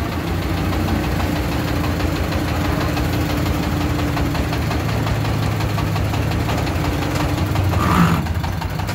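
Single-cylinder diesel engine of a homemade three-wheeled công nông farm truck chugging steadily at low speed while hauling a load of bricks. A brief louder sound cuts in about eight seconds in.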